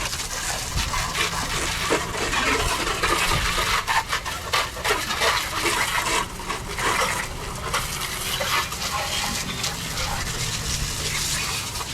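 Water spraying from a hose and splashing on a car's engine bay as it is rinsed after degreasing, an uneven hiss that swells and dips.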